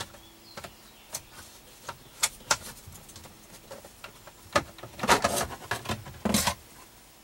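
Plastic steering column cover being worked loose and handled: scattered sharp clicks and knocks, then a busier run of plastic clattering and rattling about five seconds in, lasting a second or so.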